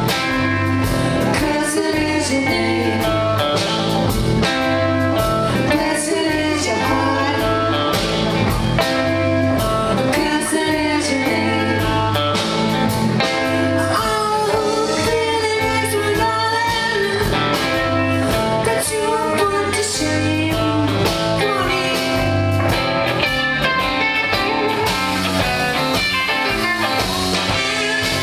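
Live electric blues band playing: two electric guitars, electric bass and drums, with a woman singing.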